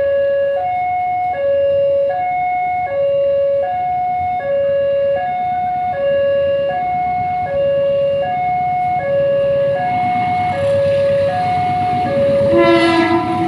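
Railway level-crossing warning alarm sounding a high-low two-tone pattern, each tone held about three quarters of a second, which signals that a train is approaching. Near the end, louder rumbling and a lower held tone join in.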